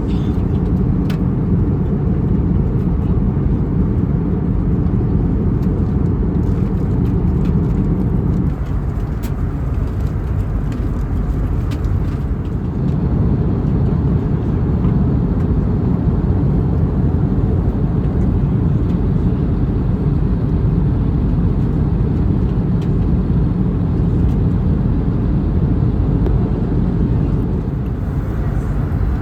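Steady in-flight cabin noise of an Airbus A321neo: a continuous low roar of engines and airflow. The deeper hum eases slightly about eight seconds in, with a few faint clicks.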